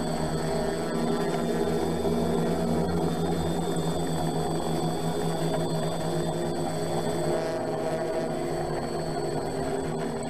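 A steady, unchanging drone made of several held tones, with no distinct knocks or events.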